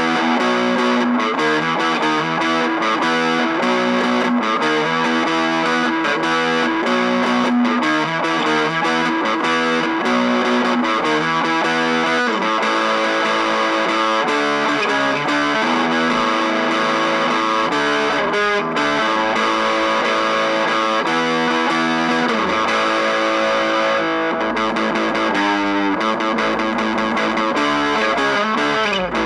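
Punk rock music: loud distorted electric guitar chords over bass and drums, playing steadily throughout.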